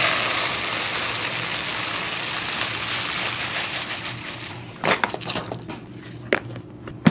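Dry grain pouring into a plastic storage container: a continuous rattling hiss that thins out and stops about four to five seconds in, followed by a few light clicks and knocks.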